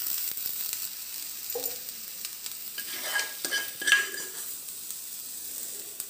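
Hot oil with garlic, onion and ginger sizzling in a small frying pan as it is poured into the raw momo filling, with sharp clicks and a burst of metal scraping and tapping about three to four seconds in as the pan is emptied against the bowl.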